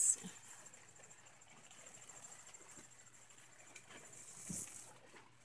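A cricket trilling steadily with a high, fast-pulsing note, while pepper leaves brush against the microphone at the start and again near the end.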